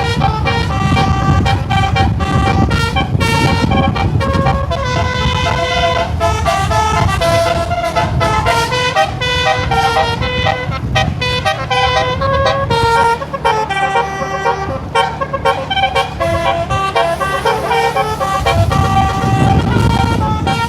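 Bus telolet horn, a multi-tone musical air horn, playing a fast melody of changing notes over the low rumble of the moving bus. The rumble drops away for a few seconds after the middle and returns near the end.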